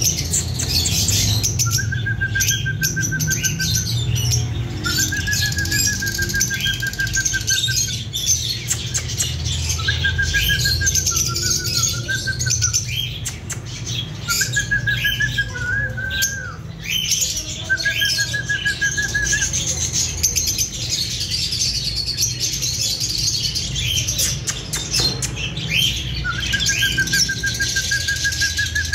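Lovebirds chirping in constant high-pitched chatter, with a lower warbling call of a second or two repeating every few seconds.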